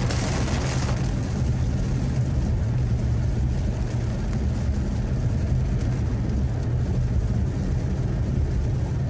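Steady low rumble of a car driving: engine and road noise, with a brighter hiss during the first second.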